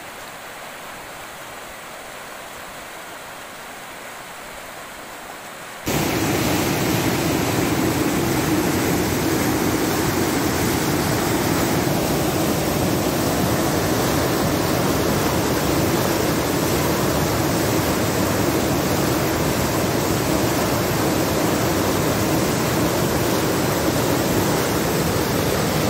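Muddy flash-flood water rushing, a steady noise of churning water. About six seconds in it jumps suddenly much louder and fuller as a faster, closer torrent takes over.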